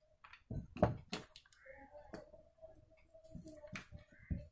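Light clicks and knocks of plastic parts being handled: the dismantled housing of a Bosch GWS 600 angle grinder and its small replacement push switch, with a few sharp taps spread through.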